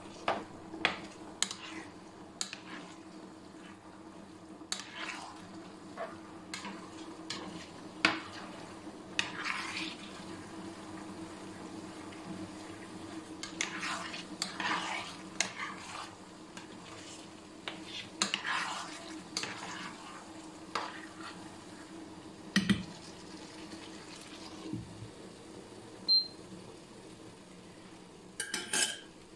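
A utensil stirring and scraping spaghetti in sauce in a nonstick frying pan, with repeated clicks of the utensil against the pan and a steady low hum underneath. A glass pan lid is set on near the end.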